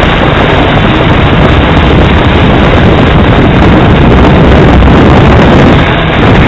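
Hexacopter in flight, heard through a small camera mounted on the craft: a loud, steady rushing of propeller wash and wind buffeting the microphone, with no distinct motor tone. There is a brief dip about six seconds in.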